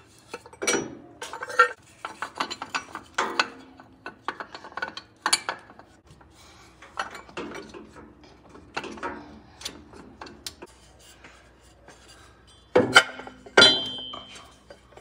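Metal clinks, clanks and scrapes of a new exhaust downpipe and catalytic converter assembly being handled and fitted into place under a Ford F-150. The knocks come irregularly, with two louder clanks near the end, the second ringing briefly.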